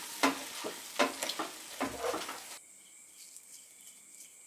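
Cooked vegetable filling being mashed in a pan with the bottom of a glass: repeated squishing strokes, about three a second, over a sizzle. A little over halfway through they stop abruptly, leaving only a faint hiss.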